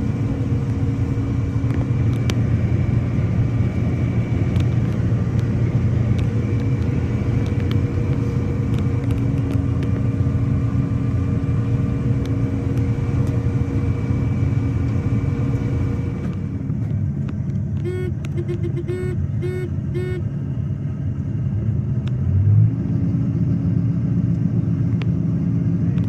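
Combine harvester running steadily while harvesting, heard from inside the cab: engine and threshing machinery drone with steady tones. A little past the middle the sound changes and a run of short beeps comes, then the full drone returns near the end.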